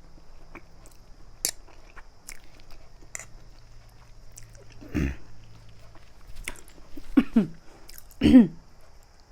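A person chewing chilli-spiced noodles close to the microphone: soft mouth clicks and chewing, with a short noise about five seconds in. Near the end come two short vocal sounds that fall in pitch, the second the loudest.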